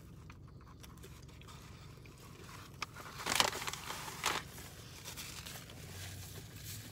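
A person chewing a mouthful of fried chicken sandwich with crunchy breading, with a few louder crunches about three and four seconds in.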